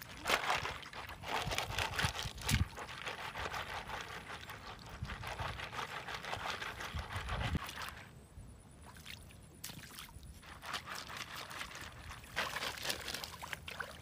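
Shallow river water splashing and sloshing as a woven basket of freshly dug clams is swished through it to rinse them. The splashing drops away about eight seconds in and picks up again near the end.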